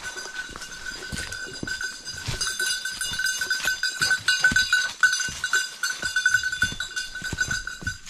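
A small bell on a bird dog's collar jingling continuously as the dog moves, over footsteps in dry fallen leaves.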